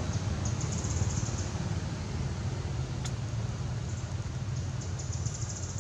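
Steady low rumble of outdoor background noise, with faint high-pitched trilling twice and a single click about three seconds in.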